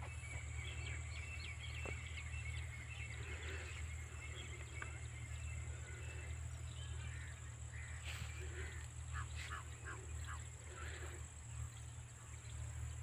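Birds chirping and calling here and there, with a quick run of chirps about nine seconds in, over a steady low rumble of wind on the microphone.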